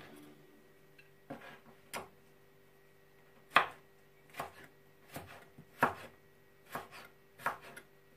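Kitchen knife slicing a carrot into sticks on a cutting board: about eight sharp, separate cuts at an uneven pace, each blade stroke knocking on the board.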